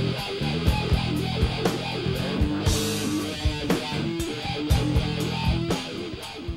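Funk-rock band playing, with drums, a low bass line and an electric part worked through a Dunlop Cry Baby wah pedal. The music begins to fade near the end.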